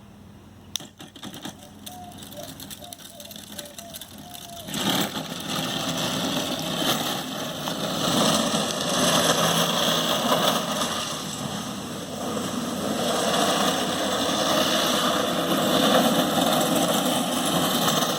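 Razor Drifter electric ride-on running on hard 3D-printed PETG wheels that grip concrete poorly: the wheels roll and slide with a loud, rough scraping noise. It sets in about five seconds in after a quieter start with a few clicks.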